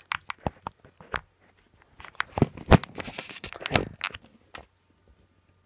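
Close handling noise: a few sharp clicks and knocks, then a denser clatter of knocks and rustling from about two seconds in, as objects are picked up and set down near the microphone.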